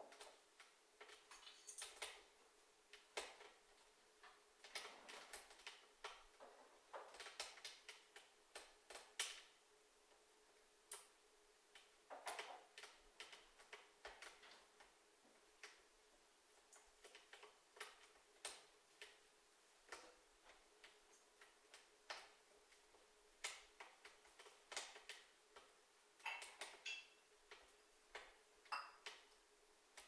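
Wood fire crackling inside a closed wood stove: irregular sharp snaps and pops, some in quick clusters, over a faint steady hum.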